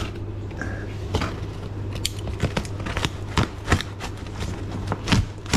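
Snap-off utility knife cutting into a cardboard parcel: a run of short, irregular scratches and crackles as the blade slits tape and cardboard.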